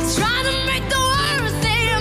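A girl's solo singing voice sliding up and down through vocal runs over a band accompaniment in a pop ballad.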